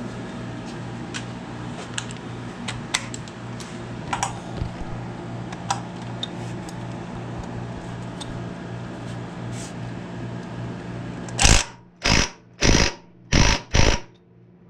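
Ryobi cordless impact wrench hammering a motor-mount bolt tight in five short bursts in quick succession near the end. Before that there is a steady low hum with scattered light clicks.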